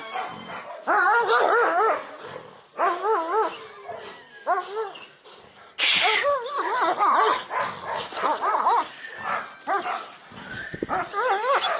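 A dog yelping and crying in distress during a dogfight, in repeated wavering, warbling cries with short gaps between, while it is being bitten. A brief harsh burst of noise comes about six seconds in.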